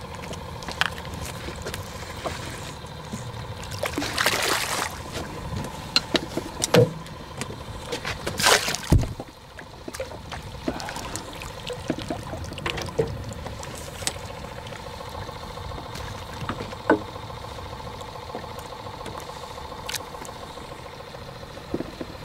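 Water splashing and trickling beside a fishing boat over a steady faint hum, with scattered knocks; two louder splashy bursts come about four and eight seconds in.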